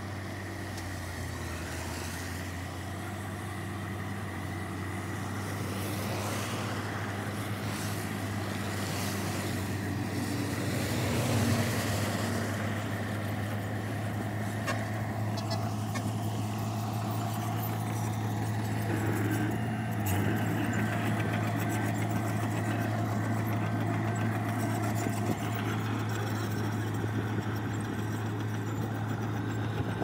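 Diesel engine of heavy construction machinery running steadily with a low hum. Between about six and twelve seconds in there is rougher, louder noise.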